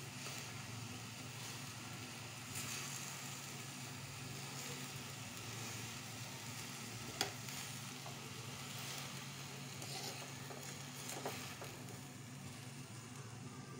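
A piece of fresh ginger sizzling as it roasts directly over a gas burner flame, a steady hiss with a low hum beneath. A sharp click about seven seconds in and a smaller one a little after eleven seconds.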